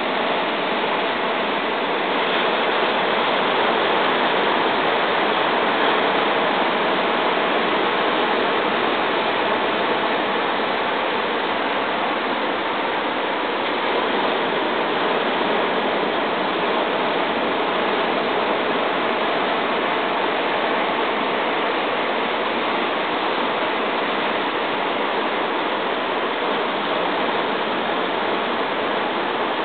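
Ocean surf breaking on a beach: a steady, even rushing wash of waves and whitewater.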